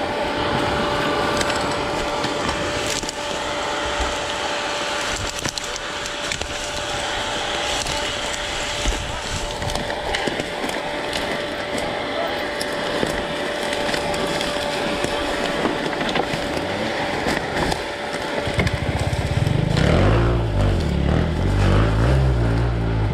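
Dry branches and brush cracking and snapping around a dirt bike, its engine running steadily underneath. About eighteen seconds in the engine revs up louder, its pitch rising and falling several times.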